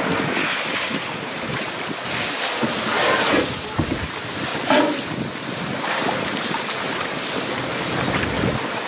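Steady rushing noise of moving water with wind on the microphone, and a few brief louder moments.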